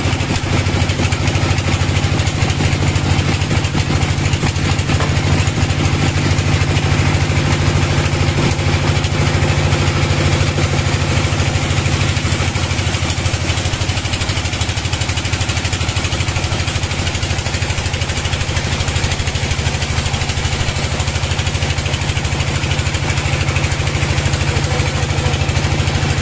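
Band sawmill running steadily, a constant low drone with the blade cutting lengthwise through a log.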